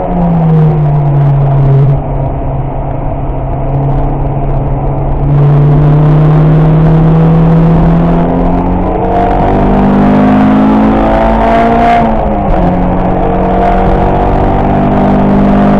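Car engine heard from inside the cabin under hard track driving. Its pitch falls in the first two seconds, holds steady, climbs from about nine seconds in, drops suddenly near twelve seconds and then climbs again.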